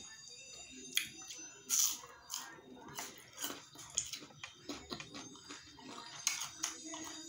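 Chewing and biting crunchy mango slices close to the microphone: irregular crisp crunches and mouth clicks.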